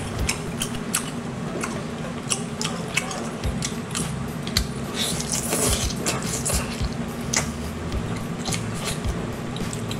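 Close-up wet chewing, sucking and smacking on boiled octopus tentacles: many short, irregular wet clicks over a steady low hum.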